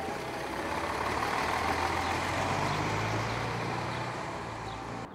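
City bus driving past: a steady low engine hum under road noise that swells around the middle and fades away toward the end.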